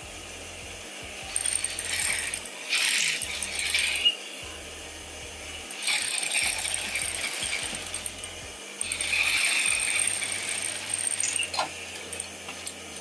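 Sewing machine stitching in several short runs of a few seconds each, with brief pauses between them.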